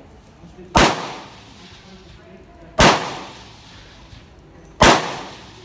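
Carbine fired three times, single shots about two seconds apart, each a sharp crack with a short echoing tail.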